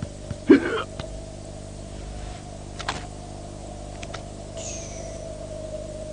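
Cartoon sound effects: one loud short squeak about half a second in, over a steady hum, with a few sharp clicks and a brief falling whistle near the end.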